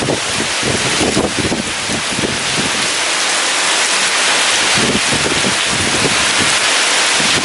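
Heavy rain pouring steadily with strong wind gusting, the gusts swelling and easing in the low end.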